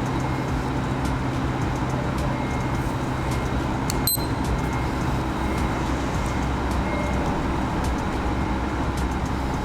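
Steady mechanical running noise with a low hum, and a brief sharp click about four seconds in.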